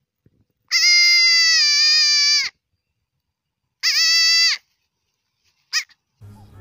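Young goat kid bleating three times: one long, high-pitched bleat, then a shorter one, then a very brief one.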